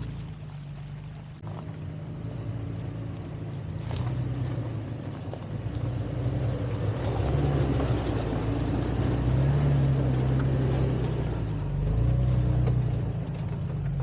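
Toyota FJ Cruiser's 4.0-litre V6 engine running at crawling speed, its pitch rising and falling, with water splashing and rushing around the tyres, loudest in the middle.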